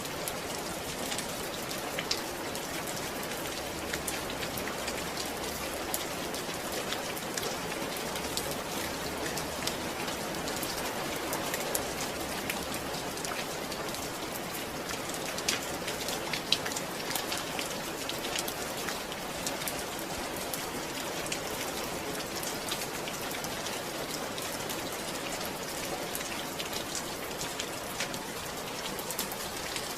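Steady rain falling on a surface, a dense even patter with scattered sharper individual drops.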